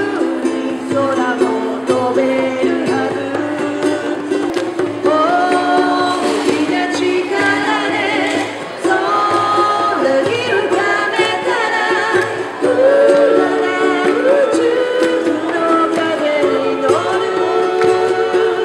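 A woman singing a melody to her own ukulele strumming, with a djembe played by hand alongside.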